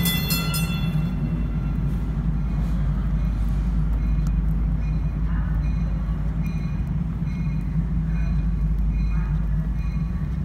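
DART light rail train pulling out of the station, with a brief high-pitched tone in the first second. A steady low rumble continues, unchanged, after the train has gone.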